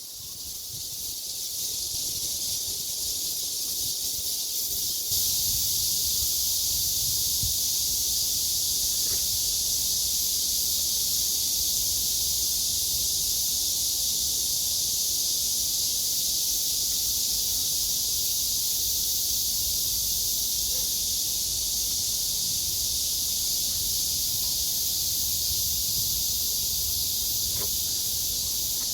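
Cicadas singing in a dense chorus: a continuous shrill buzz that swells over the first couple of seconds and grows a little louder about five seconds in.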